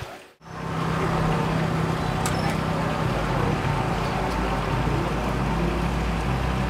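A motor running steadily: a low, even hum under a hiss of outdoor noise. The sound cuts out briefly about half a second in, then the hum comes in and holds.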